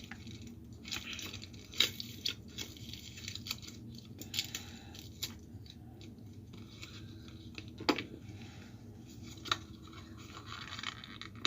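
Trading-card packaging being handled and torn open: scattered scratching, crinkling and sharp clicks of plastic blister and foil booster wrappers, with a few louder snaps.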